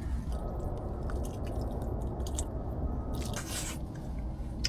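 Wind rumbling on the microphone under a soft crackle, with a few small clicks and a short hiss about three and a half seconds in.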